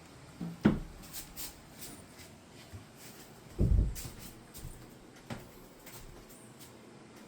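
A cat knocking and bumping about in its hiding place: a few sharp knocks and light clicks, with one heavy low thump about halfway through.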